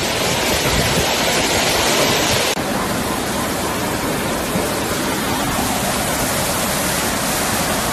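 Steady rushing noise of a heavy rainstorm, which changes abruptly about two and a half seconds in to the continuous rush of fast-flowing brown floodwater in a swollen river.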